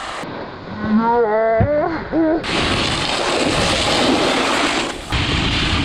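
Snowboard scraping and hissing over packed snow with wind rushing across a GoPro HERO7's microphone; the noise changes abruptly twice. About a second in, a person lets out a drawn-out wordless shout.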